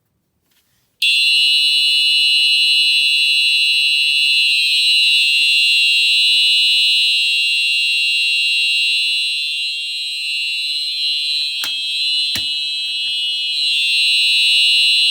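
Fire alarm horn strobe sounding a continuous, very loud, high-pitched horn tone, set off by a pulled manual pull station. It comes on about a second in and holds steady, with two sharp clicks near the end.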